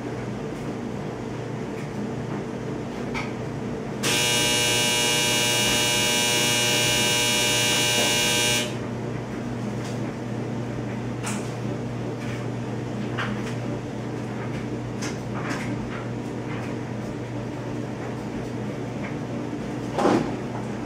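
A loud, steady buzzing tone holds for about four and a half seconds, starting and stopping abruptly, over a constant low hum; a single thump comes near the end.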